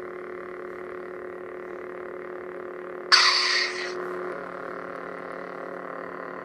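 Steady electronic hum of a lit LED lightsaber's sound board. About three seconds in, a second lightsaber ignites with a sharp, bright power-up sound lasting under a second, and then both hum together.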